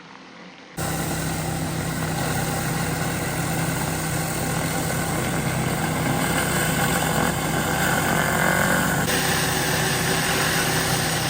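Gas-powered pressure washer engine running steadily under the hiss of high-pressure water from a surface cleaner on interlock pavers. It cuts in suddenly under a second in, and the hiss changes tone about nine seconds in.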